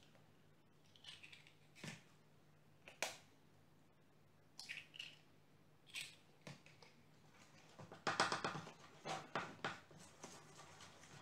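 Eggs being cracked open with a metal spoon over a plastic bowl of flour: a handful of separate sharp taps and clicks of spoon and shell. About eight seconds in comes a denser run of clattering and rustling as the eggs are worked into the flour.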